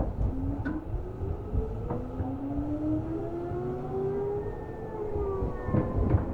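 Seibu New 2000 series electric train heard from on board: the VVVF inverter and traction motors whine in several tones that rise slowly in pitch as the train gathers speed, over the rumble of the running gear. Sharp wheel clacks over rail joints come at the start, around a second and two seconds in, and a cluster near the end.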